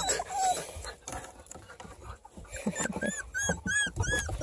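Four-week-old beagle puppies whining and squealing in short, high-pitched cries, several a second, starting about three seconds in.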